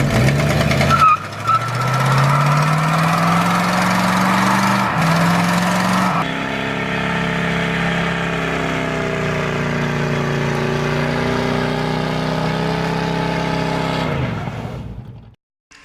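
Car engine accelerating with a steadily rising pitch, then running at a wavering, roughly steady speed before fading out, in a few abrupt edited segments.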